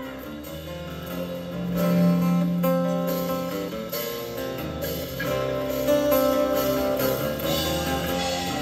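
Live band playing an instrumental passage with guitars to the fore and no vocals, swelling louder about two seconds in.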